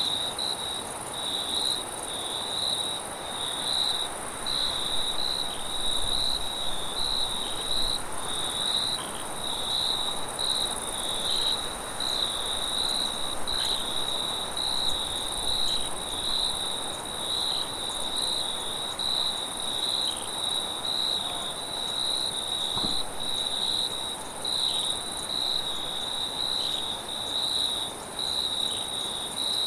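Crickets chirping in a continuous, pulsing high-pitched chorus, with a second, even higher insect trill above it, over a soft wind hiss: night-time field ambience.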